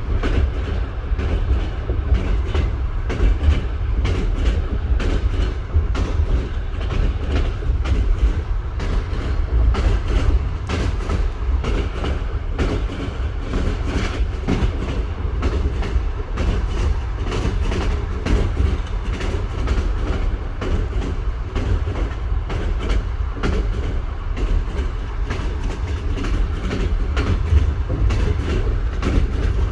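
Train wheels knocking without a break over rail joints: a steady clickety-clack of close, irregular knocks over the deep rumble of the moving train.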